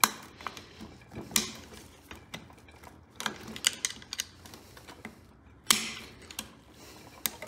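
Screwdriver working a small engine's valve spring and retainer clip loose: irregular metal clicks, taps and short scrapes, with a stronger click at the start, another about a second and a half in and a longer scrape near the end.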